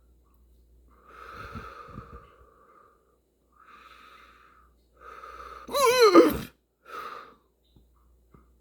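A person fighting violent hiccups, breathing hard in heavy, noisy breaths, with a loud strained vocal wheeze that wavers up and down in pitch about six seconds in, followed by one more short breath.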